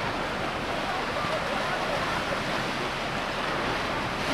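Ocean surf washing onto a sandy beach, a steady rush of breaking waves.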